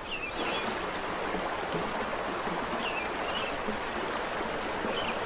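River water rushing steadily, with short bird chirps that come in pairs a few times.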